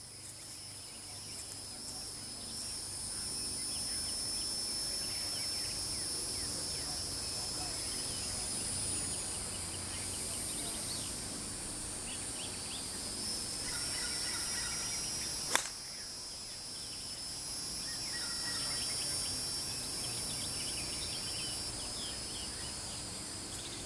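Insects droning steadily in two high pitches, with scattered bird chirps. About fifteen seconds in comes a single sharp click: a golf club striking the ball.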